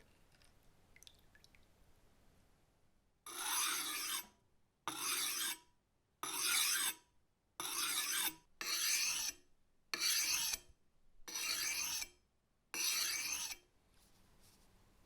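Eight slow, rasping strokes of hand abrasion on the cleaver, each lasting under a second with short pauses between them, starting about three seconds in.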